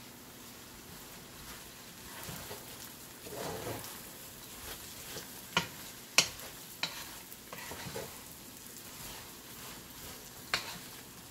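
Chopped onions sizzling in hot oil in a pot as a wooden spatula stirs them, the onions just added and starting to sauté. A few sharp knocks of the spatula against the pot, several around the middle and one near the end.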